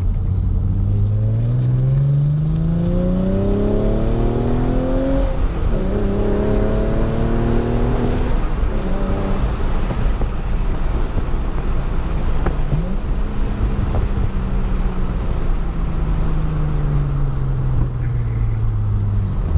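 Hyundai Genesis Coupe's naturally aspirated V6 with a CNT v3 cat-back exhaust and test pipes (secondary cat deleted) pulling hard. The pitch rises steadily for about five seconds, drops with an upshift, and climbs again with another shift about eight seconds in. It then holds steady and eases off, falling slowly in pitch near the end.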